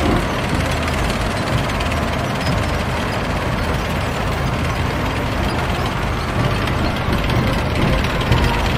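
Tanks' engines running and their steel tracks clattering in a steady, continuous mechanical din.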